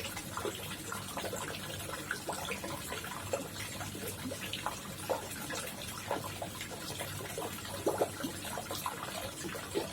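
Koi pond water trickling and splashing steadily, with many small irregular plops and gurgles.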